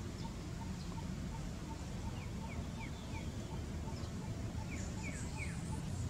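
Outdoor background of birds over a steady low rumble: one bird repeats a short note about three times a second, and two quick runs of short falling chirps come about two seconds in and again near five seconds.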